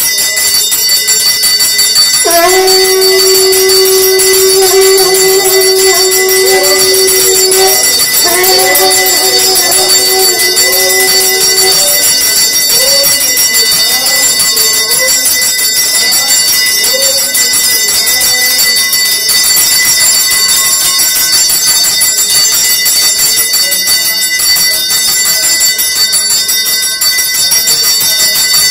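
Temple pooja bells ringing continuously and loudly. From about two seconds in, a held, wavering melodic tone sounds over them and fades out around the middle.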